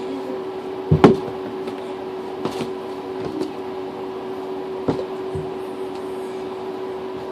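Someone rummaging through a bathtub full of foam squishy toys: a sharp double knock about a second in, then a few fainter knocks and bumps, over a steady hum.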